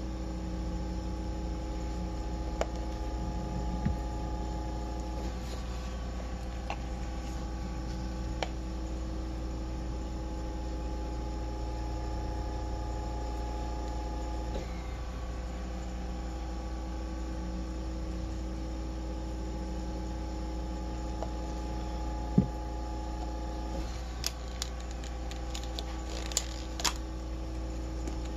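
Steady electrical hum made of several constant tones, with a few scattered light clicks and taps, most of them near the end.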